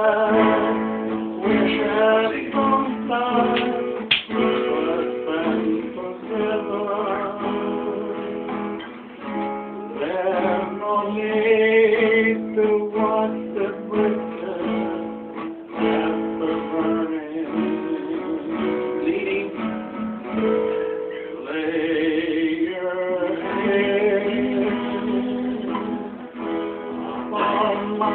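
Acoustic guitar strummed and picked, with men's voices singing along at times.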